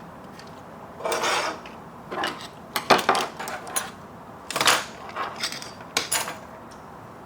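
Tools and hard plastic parts being handled and set down on a workbench: a scattered series of short clinks, knocks and rattles.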